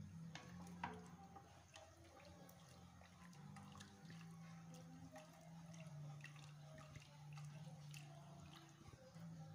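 Faint stirring of a thick pork blood stew with a wooden spoon in a stainless steel pot: scattered light knocks and liquid sounds, over a low steady hum.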